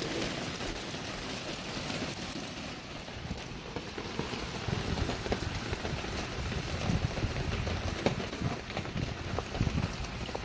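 Hailstorm with heavy rain pelting down: a steady hiss of falling precipitation broken by many small ticks and knocks of hailstones striking surfaces.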